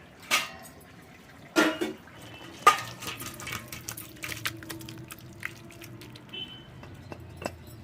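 Metal cookware and utensils clanking as a finished dish is taken off the stove: three loud clanks in the first three seconds, then lighter clicks and taps.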